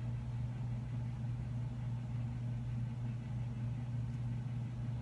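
A steady low hum, with no other sound standing out above it.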